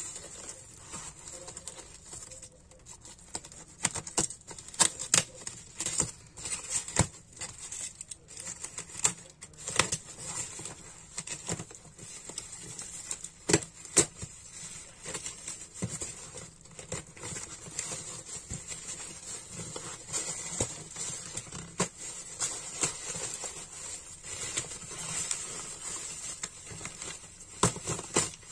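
Packing tape being peeled and torn and plastic wrap crinkling as a taped box is opened by hand: irregular crackles and sharp snaps, with a faint steady high-pitched hiss behind.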